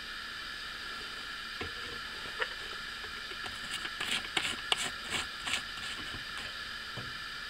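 Soft clicks and rustles of a plastic bottle of power-steering fluid being handled, with a quick run of them in the middle, over a steady hiss.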